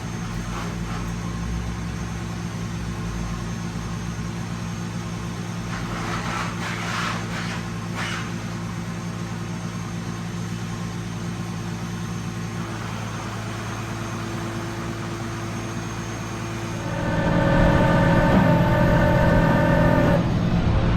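Tow truck engine running steadily while driving. About 17 seconds in it gets louder, with a higher whine on top for a few seconds, as the truck accelerates.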